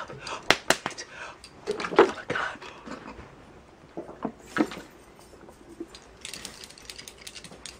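A woman's pained gasps and wordless groans as she suffers the burn of a hot pepper. There are two sharp clicks about half a second in, and a breathy hiss of blown-out air near the end.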